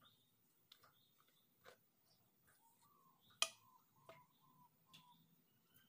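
Faint clicks and light scrapes of a steel spoon against a plate while sauce is spread over fried bread, with one sharper clink about three and a half seconds in.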